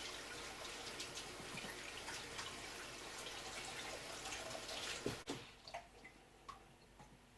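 Water running from a sink tap as hands are washed, turned off with a knock about five seconds in, followed by a few faint drips and clicks.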